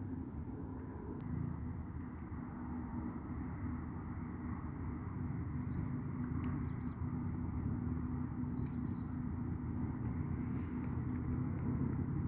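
Steady low rumbling background noise with a faint hum. A few faint, short high bird chirps come in twice near the middle.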